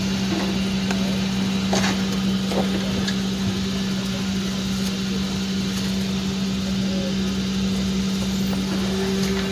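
Steady hum of a Boeing 777-200's cabin air conditioning on the ground, a constant low drone under an even rush of air, with a few faint clicks and knocks.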